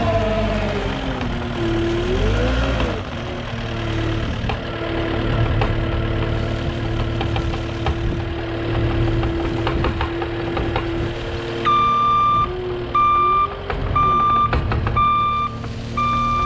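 Cat 289D skid steer's diesel engine running, its pitch rising and falling early on and then holding steady, with some clanking. About twelve seconds in its reversing alarm starts beeping about once a second as the machine backs up.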